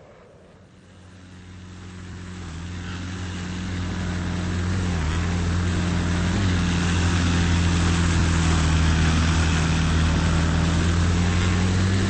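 Jet noise from an F-22 Raptor's two Pratt & Whitney F119 turbofans, building up over the first four seconds and then holding loud and steady with a deep, even hum under the rush.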